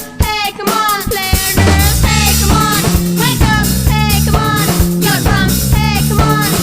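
Background music with a melody over a drum kit beat; a bass line comes in about one and a half seconds in.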